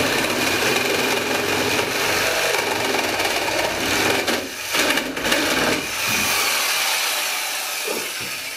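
Reciprocating saw cutting through the old cabin logs at the window sill, running hard with two brief let-ups about halfway through, then tapering off near the end.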